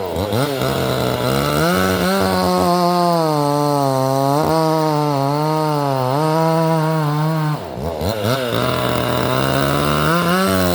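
Vevor 62cc two-stroke chainsaw with a 20-inch bar running at high revs while cutting wood. Its pitch wavers and sags under load, dropping sharply and climbing back at the start and again about eight seconds in.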